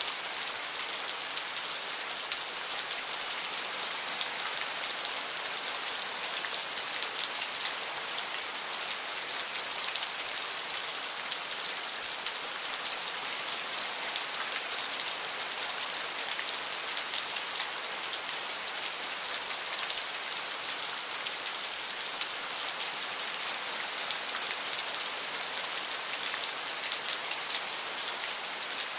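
Steady rain: an even hiss of falling drops with fine pattering, strongest in the high end and unchanging throughout.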